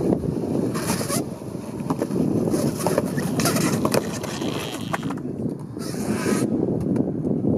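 Skateboard wheels rolling on a concrete path with a steady rumble, and a few sharp clacks of a board hitting the pavement about three to four seconds in as a trick is bailed.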